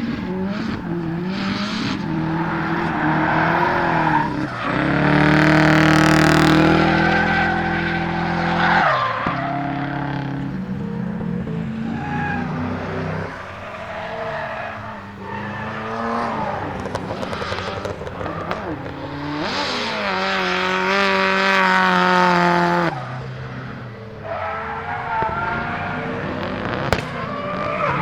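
Turbocharged 4G63 four-cylinder in a rear-wheel-drive Mitsubishi Lancer Evo X drift car, revving up and down with two long stretches held at high revs, over tyres squealing as it slides. The engine has a misfire. A sharp crack near the end.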